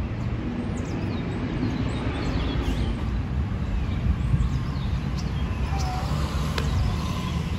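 Steady low rumble of city traffic, with faint high chirps now and then.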